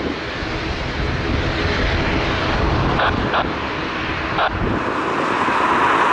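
Jet engines of a Boeing 787 Dreamliner airliner on final approach: a steady rumble that grows louder in the last second or so, with a higher whine coming in as the plane nears.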